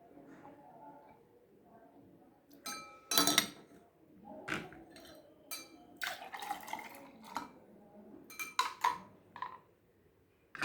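Glassware and kitchen utensils being handled and set down, giving a series of separate clinks and knocks. The loudest, a ringing clink, comes about three seconds in.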